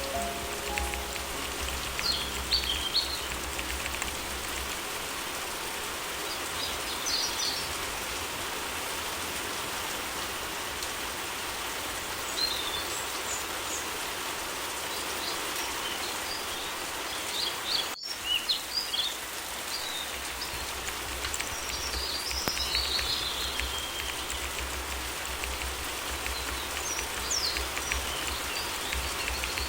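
Steady rain, with short bird chirps every few seconds. A few piano notes die away in the first second.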